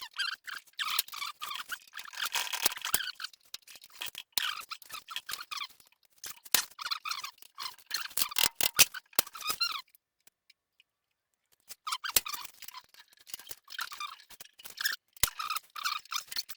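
Rust-seized metal parts of a Delta 12-inch planer squeaking in short, irregular bursts with scattered clicks as the crank is forced to turn, the sign of rusted parts just starting to break free. The squeaking stops for about a second and a half a little past the middle, then resumes.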